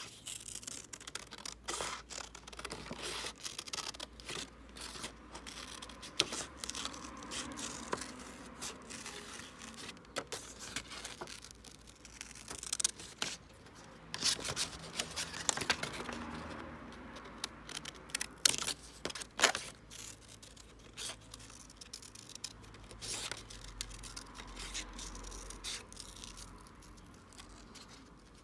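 Small blue-handled scissors snipping through thin printed card, cutting out toy plane parts in a long, irregular run of short cuts.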